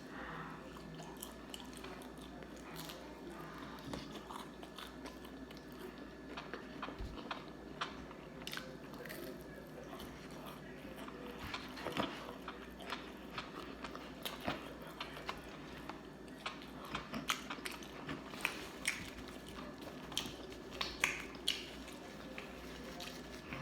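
Close-miked biting and chewing of fried chicken and fries, with many short crunchy clicks that come more often in the second half.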